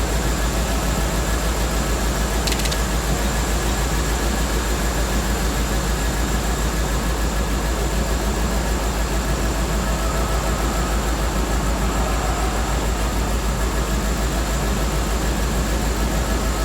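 Land Rover Discovery II's 4.0 V8 engine idling steadily, with its newly replaced power steering pump running quietly, fluid circulating with no air.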